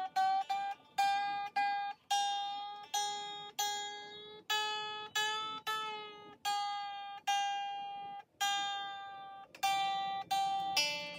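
Baritone ukulele being tuned: a single string plucked over and over, one ringing note about every half second to a second, mostly at the same pitch, which shifts slightly between some plucks as it is brought into tune.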